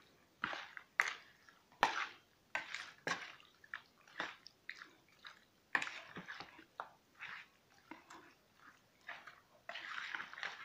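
A hand working raw chicken pieces in a yogurt-and-spice marinade in a plastic bowl: irregular wet squelches and squishes, several a second.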